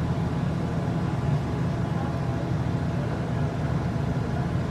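Bulldozer's heavy diesel engine running steadily at an even pitch, a constant low rumble.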